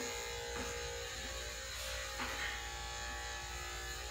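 Electric pet grooming clipper running with a steady buzz as its blade cuts through the dog's coat.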